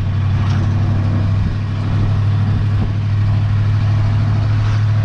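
Engine of a Ford Model A roadster pickup hot rod running at a steady low drone while driving.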